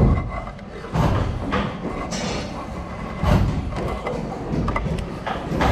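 Hand woodworking: loud, irregular wooden knocks and thumps a second or two apart, with scraping between them.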